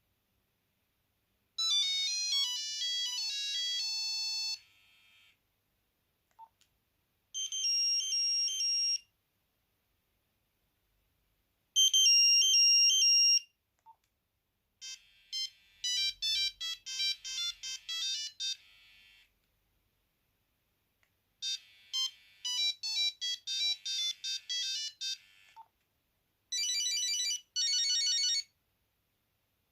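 A Nokia 8210's monophonic ringtones played one after another through the phone's speaker: six short beeping melodies of high single notes, each lasting a few seconds, with silent gaps between.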